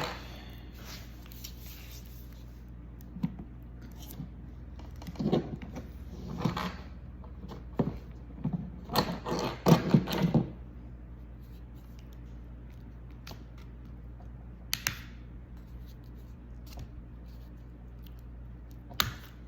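Small clicks, taps and scrapes of fingers working at the battery connector inside an open laptop, coming in short flurries that are busiest in the middle, over a steady low hum.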